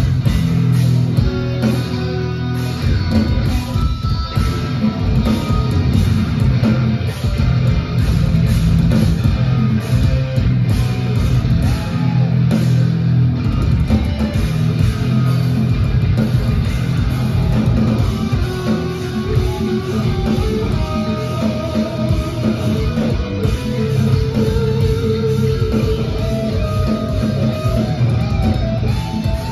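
Instrumental progressive metal played live and loud through a concert PA: electric guitar lines over drums and a heavy low end.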